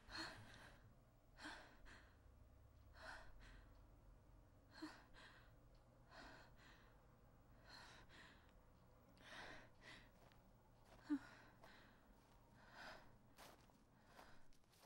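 A person breathing heavily in slow, ragged sighs and gasps, about one breath every one and a half seconds, one with a short voiced catch late on. A few light rustles come in near the end.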